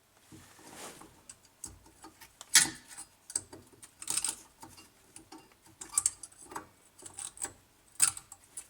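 Irregular metal clicks, taps and short scrapes of brake pads, springs and caliper parts being handled during a brake pad change, loudest about two and a half seconds in and again near the end.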